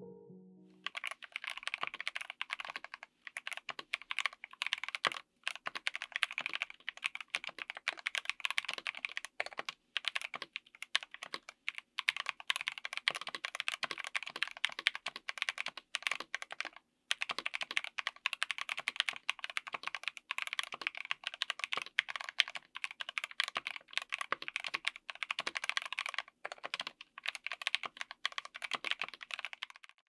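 Continuous fast typing on a mechanical keyboard with stock Gateron Oil King linear switches, MT3-profile PBT keycaps, an FR4 plate and an aluminium case: a dense run of keystrokes broken by a few short pauses.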